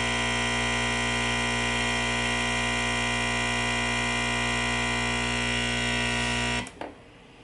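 Nespresso capsule machine's pump buzzing steadily as it pushes water through a coffee capsule, then cutting off abruptly about six and a half seconds in at the end of the brew, followed by a faint click.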